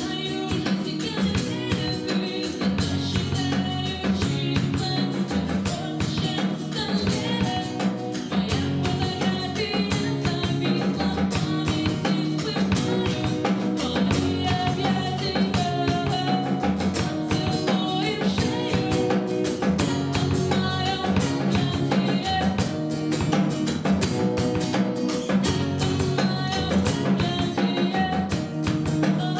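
Song played live on guitar with a drum kit, steady and continuous.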